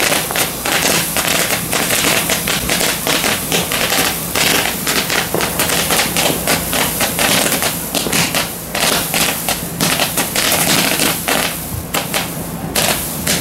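Ground firework fountain spraying sparks, a steady hiss with a dense run of rapid crackling pops.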